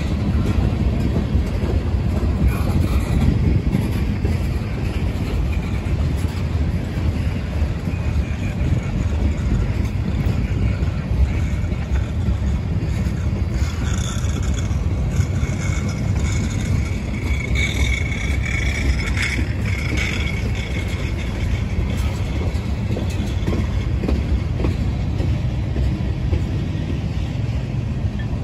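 Freight train of tank cars rolling past: a steady rumble of steel wheels on rail, with a thin high squeal that comes and goes around the middle.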